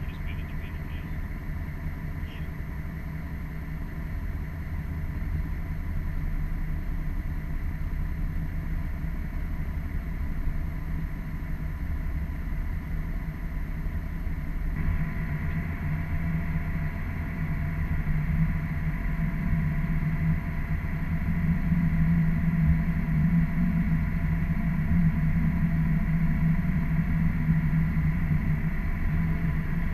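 Pilot boat's engines running steadily, heard from inside the wheelhouse, growing louder as the boat gathers speed. The drone steps up about halfway through and rises again in the last third.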